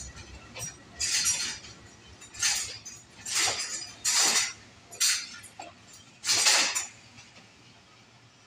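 Passenger train coaches rolling past slowly over the track, with a faint low rumble and a series of short, sharp metallic clinks and screeches from the wheels, roughly one a second at uneven spacing.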